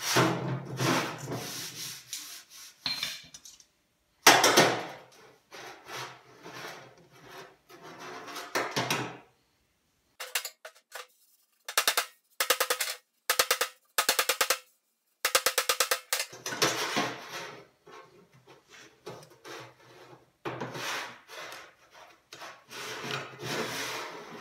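A hand block rubbed back and forth over a bare sheet-steel fender patch in scraping strokes, as the weld area is smoothed for high and low spots. In the middle come several short runs of quick, light hammer taps on the panel.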